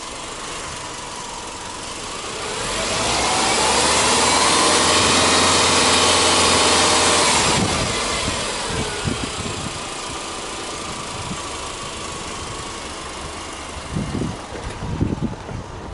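Subaru Legacy 2.0i's flat-four boxer engine idling, then free-revved with the car standing: the revs climb about two seconds in, hold high for around five seconds, then drop back to a steady idle once the throttle is released.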